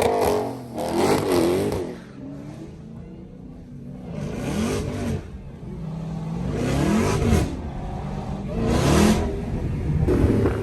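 Dodge Hellcat's supercharged V8 revving hard in about five separate bursts, each climbing and falling in pitch, with quieter running between them.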